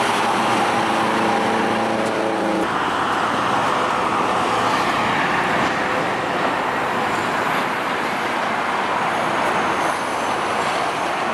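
Road traffic noise: cars and semi trucks passing on a busy highway, a steady rushing of tyres. A vehicle's engine hum stands out for the first two or three seconds, then cuts off, leaving the tyre rush.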